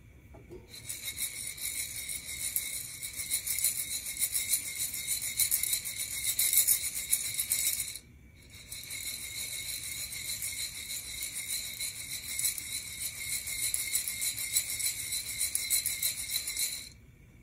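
Coffee beans rattling as they are shaken back and forth inside a Nuvo ceramic hand roaster over the flame: a dense, fast rattle in two long bouts with a short pause about eight seconds in.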